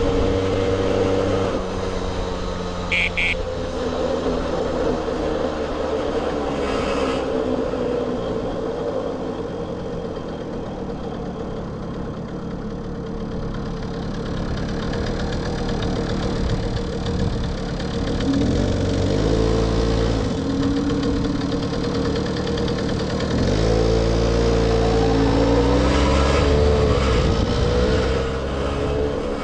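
1978 Puch Sport MK II moped's 50cc two-stroke engine running under way. The revs dip in the middle, then rise twice as it pulls away, about two-thirds of the way in and again near the end.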